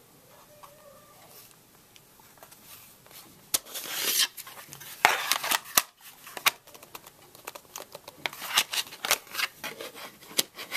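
Hands handling a TI-Nspire CX graphing calculator close to the microphone, its plastic casing rubbing against the fingers. The sound is faint for the first few seconds, then turns into a run of scrapes and sharp clicks.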